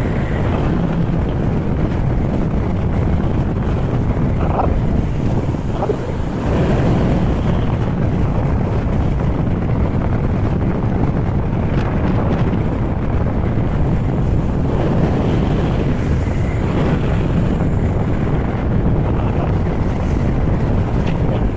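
Steady rush of wind buffeting the microphone of a camera carried on a moving Honda ADV160 scooter.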